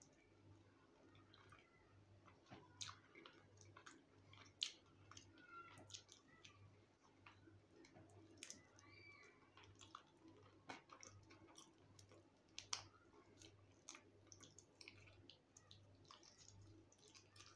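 Faint eating sounds of a man chewing fried fish: scattered small clicks and lip smacks at irregular intervals, over a faint low hum.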